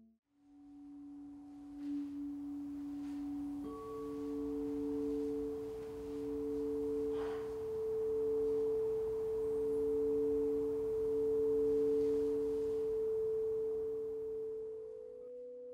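Two crystal singing bowls sung with mallets around their rims: a low steady tone with a gentle pulsing swell, joined about a quarter of the way in by a higher tone. The two ring together until shortly before the end, when they give way to a new pair of tones.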